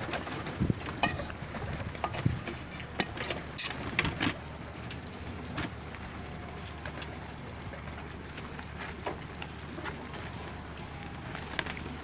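A flock of plosur pigeons feeding on grain on the ground: a patter of many small pecking clicks and taps. The clicks are densest in the first four seconds, then grow sparser over a faint steady hiss.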